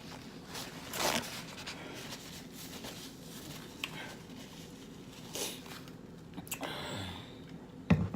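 Mukbang eating sounds: chewing and handling sauce-covered seafood boil, with a few short crinkly rustles and a sharp click near the end.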